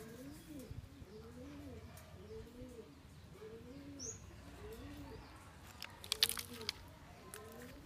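A dove cooing faintly over and over, one low coo after another at an even pace. A few sharp clicks about six seconds in.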